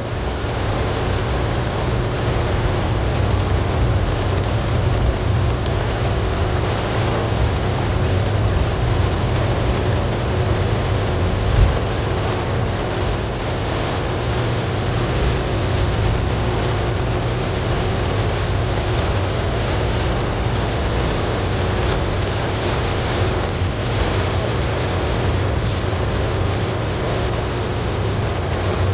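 Steady downpour of thunderstorm rain, an even hiss over a deep low rumble that holds throughout. One brief louder thump comes a little before the middle.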